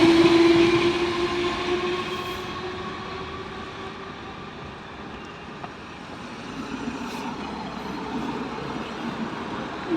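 Merseyrail Class 507 electric train passing over a level crossing and moving away. Its sound, including a steady tone, fades over the first few seconds and leaves a faint rumble that grows slightly louder towards the end.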